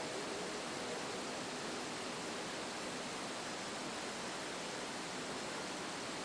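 Steady, even hiss of background noise, with no horn sounding.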